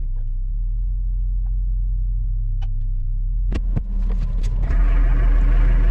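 Heavy diesel engine running steadily with a low rumble, with a few light clicks and knocks. A little past halfway it gets louder and a hiss joins in.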